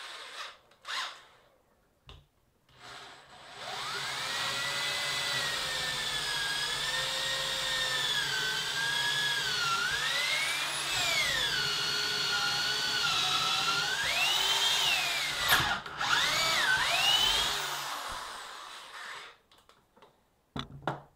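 Corded electric drill boring a hole into a wooden workbench top, its motor whine rising and falling in pitch as the trigger and load change. It starts about three seconds in and stops shortly before the end.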